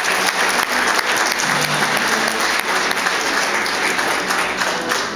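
Audience applauding steadily, with music playing faintly underneath.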